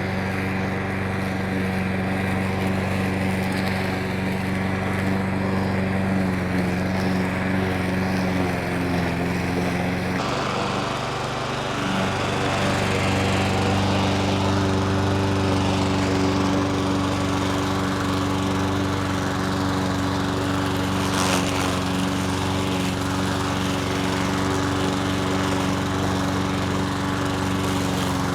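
Petrol walk-behind lawn mower engine running steadily. About ten seconds in the engine note dips briefly and settles at a slightly different pitch, with more hiss on top.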